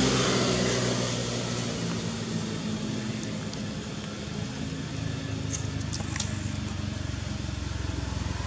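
A motor engine's steady low hum, easing off over the first couple of seconds and growing again about halfway through, with a few faint clicks about six seconds in.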